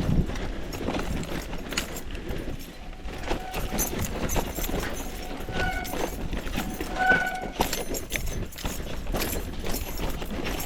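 Mountain bike rattling and clattering over rough trail on a descent, with a constant low rush, and two brief squeals past the middle.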